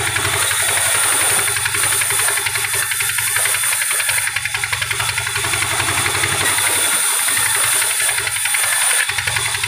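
Large vertical band saw ripping through a thick log section: a steady hissing rasp from the blade with a fast ticking running through it over the machine's low hum. The hum dips briefly about seven seconds in.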